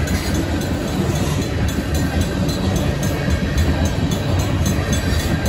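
Loaded tank cars of a freight train rolling through a grade crossing, their steel wheels rumbling and clattering steadily on the rails. Over it, the crossing's Safetran mechanical bell dings quickly and evenly, about three or four strokes a second.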